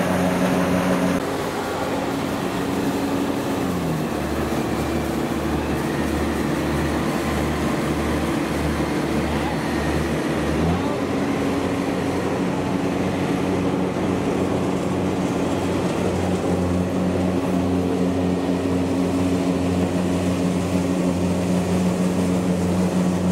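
A combine harvester's engine running, then from about a second in the engine of a small tracked field carrier running steadily as it crawls over muddy rice stubble. About three and a half seconds in the engine drops in pitch and a low throb pulses a little more than once a second. Near eleven seconds in the pitch rises again and stays steady.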